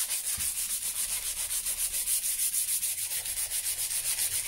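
Hand-held 100-grit sandpaper rubbed briskly back and forth along a fire-charred hickory axe handle, in quick, even strokes. It is sanding back the burnt surface after the handle was torched to bring out the grain.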